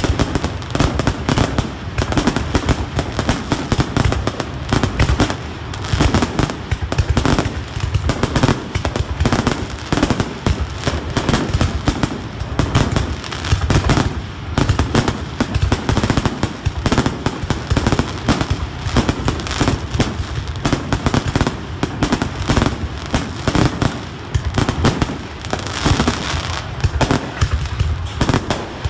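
Fireworks display: a dense, continuous barrage of bangs and crackling bursts, with no break.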